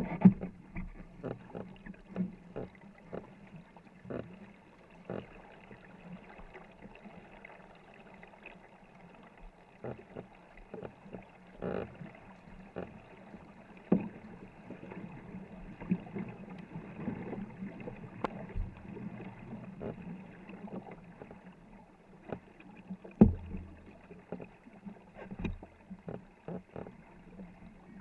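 Paddles stroking and splashing beside a 24-foot war canoe, with sharp knocks of paddles against the wooden hull about once a second and one louder knock late on.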